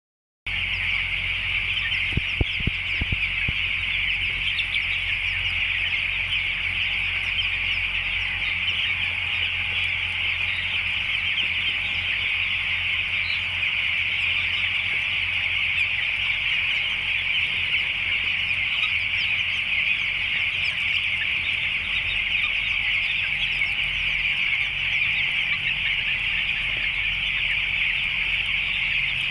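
A large flock of nine-day-old broiler chicks peeping constantly, many high chirps overlapping, over a steady low hum. A few sharp knocks about two to three seconds in.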